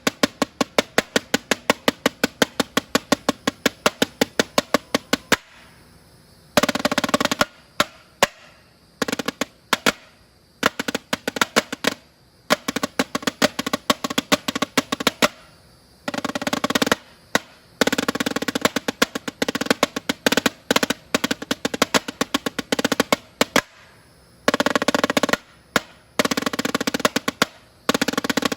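Snare drum played solo: an even run of single strokes, about six a second, then after a short pause a freestyle pattern of accented hits broken up by several drum rolls about a second long.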